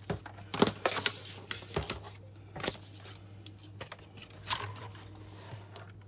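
Handling noises: several sharp knocks and clicks with rustling between them, as a keyboard and its USB cable are moved about and set down. A faint steady low hum runs underneath.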